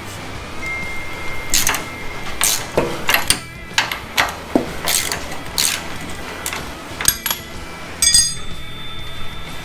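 Irregular metal clanks and clicks of hand tools working on a stuck coilover mounting bolt, with a sharper strike about eight seconds in that leaves a ringing metallic tone.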